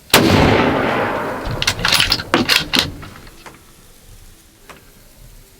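A single rifle shot from a 6.5 hunting rifle, with a long echo fading over about a second and a half. A quick run of sharp clicks and knocks follows between about one and a half and three seconds in.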